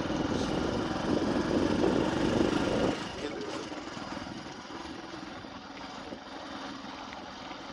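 An engine running close by, with a rapid pulsing that drops away about three seconds in, leaving a steadier, quieter background of traffic-like noise.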